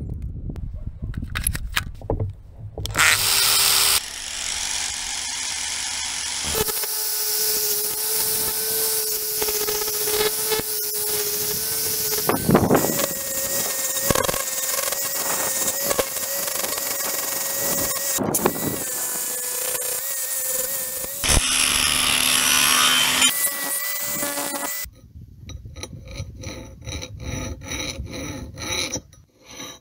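Angle grinder with a coarse sanding disc running against a steel axe head, grinding off rust with a steady whine that steps up in pitch partway through. The grinder stops near the end, and a hand file scrapes across the steel in short, even strokes.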